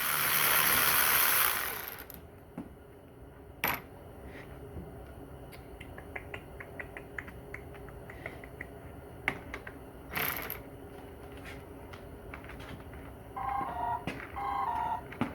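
A loud burst of hissing at the start and a shorter one about ten seconds in. In between, a ratchet wrench clicks in quick strokes at about four a second, working the transmission's bolts. Near the end a phone rings with a two-note tone.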